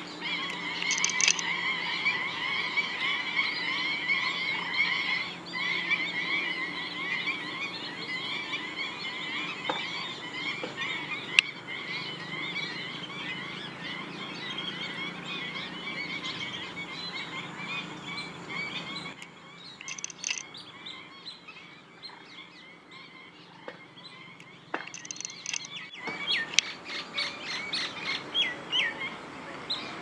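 A flock of black-winged stilts calling: a dense chorus of short, sharp, rapidly repeated notes, many birds overlapping. The chorus thins about two-thirds of the way through, and a few louder separate calls come near the end.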